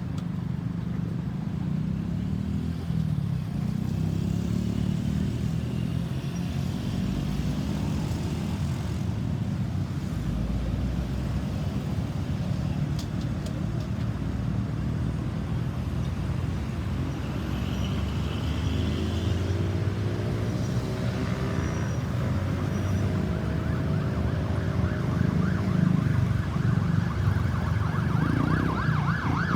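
Vehicle engine and traffic rumble. About two-thirds of the way through, an emergency vehicle's siren comes in with rising tones, then switches to a fast warbling yelp just before the end.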